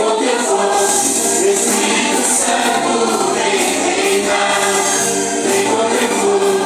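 A group of voices singing a Portuguese-language gospel worship song together with instrumental accompaniment and a steady beat.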